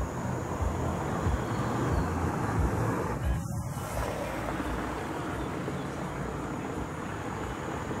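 Steady low background rumble of outdoor noise, with a faint thin high tone held throughout and a brief dip in the middle range about three and a half seconds in. No bird call stands out.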